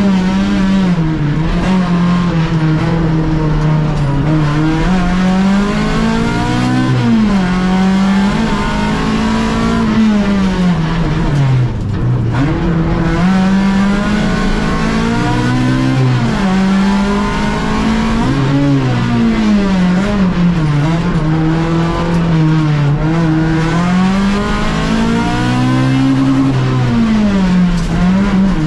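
Fiat Uno race car's engine, heard from inside the cabin, revving up and dropping back over and over as the car accelerates and slows through a cone slalom.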